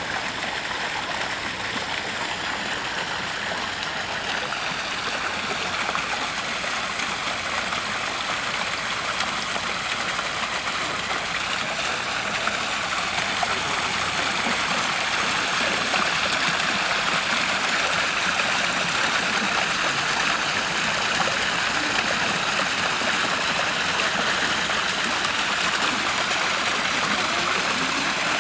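Steady rushing of running water that grows slowly louder.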